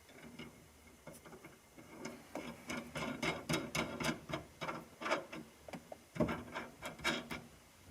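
Hand tools working the steering column's threaded shaft and nut: irregular sharp clicks and knocks of metal on metal, starting about a second in and coming in uneven clusters.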